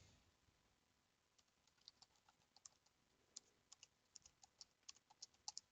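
Faint computer keyboard typing: a run of light, irregular key clicks that begins about two seconds in.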